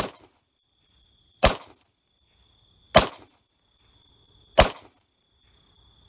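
Crickets chirping in a steady high trill, cut by a sharp hit about every one and a half seconds, the sound swelling up before each hit.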